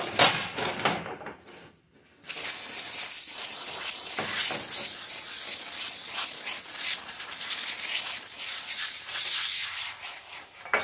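Metal clinking for the first couple of seconds, then an aerosol can of brake cleaner spraying in a long continuous hiss onto a metal timing chain.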